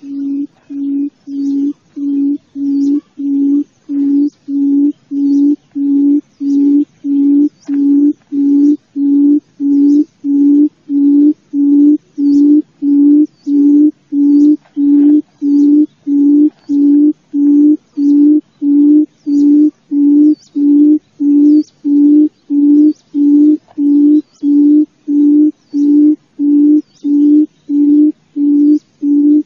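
Forest quail (chim cút rừng) calling: a low hooting note repeated steadily, about three notes every two seconds.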